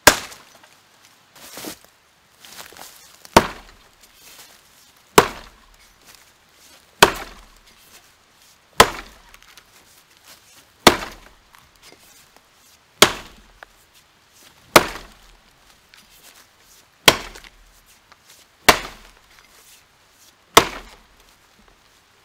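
Rinaldi Calabria 700 g axe chopping into a felled log: about a dozen sharp blade strikes, roughly one every two seconds, each a crisp bite into wood.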